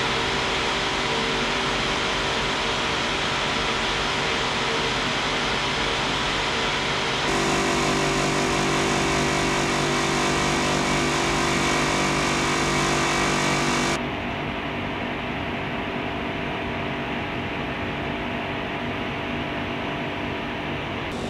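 Steady hum of refrigeration and ventilation machinery, with the fan and compressor of a Danfoss Optyma condensing unit running and giving off several steady tones. The sound jumps abruptly about seven seconds in, growing louder and deeper, then about fourteen seconds in drops to a quieter, duller hum.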